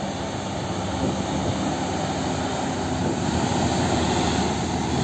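A container semi-truck's diesel engine running as the truck drives along a highway, with steady road and traffic noise.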